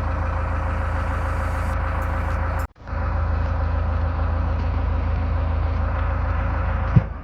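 JCB 3DX backhoe loader's diesel engine running steadily. The sound cuts out for an instant about two and a half seconds in, then carries on. Near the end there is a single thump and the sound begins to fade.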